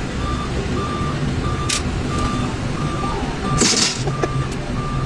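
Heavy vehicle's reversing alarm beeping steadily, about one and a half beeps a second, over its running engine, with two short hisses.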